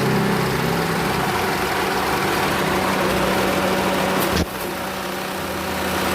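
Mitsubishi Lancer's four-cylinder engine idling roughly with a misfire, which the mechanic suspects is an ignition fault rather than a vacuum leak. A sharp click comes about four seconds in, and the engine sound drops a little after it.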